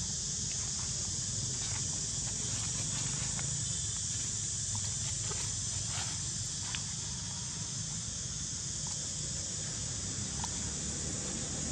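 Steady outdoor background hiss over a low rumble, with a few faint, scattered ticks.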